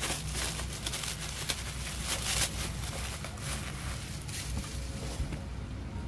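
Clear plastic wrapping crinkling and rustling in irregular crackles as hands pull it off a small cardboard box, stopping about five seconds in. A low steady hum runs underneath.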